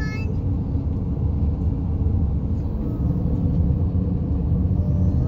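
Steady low rumble of engine and tyre noise inside a car's cabin while it drives along a highway.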